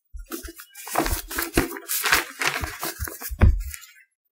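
Paper rustling and crinkling in a string of irregular scrapes, as sheets are handled and shifted.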